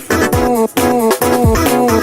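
Background music with a steady beat: an instrumental stretch of an Afrobeat-style song, without vocals.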